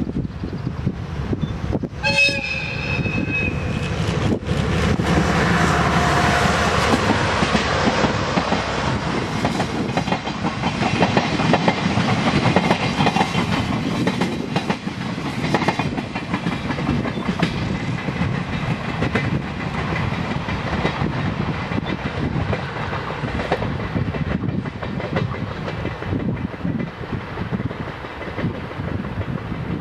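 A DD51 diesel-hydraulic locomotive sounds its horn in one blast of about two seconds, starting about two seconds in. It then passes close by with its diesel engines running and the coaches' wheels clattering over the rail joints. The noise slowly dies away as the train draws off.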